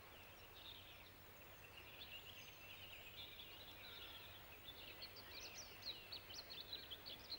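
Faint birdsong: small birds chirping and twittering, busier in the second half, over quiet outdoor background.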